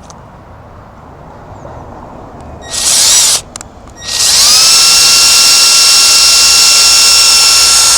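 Power drill boring pilot holes into a wooden post: a brief trigger burst about three seconds in, then the motor spins up with a quickly rising whine and runs at a steady pitch for about four seconds.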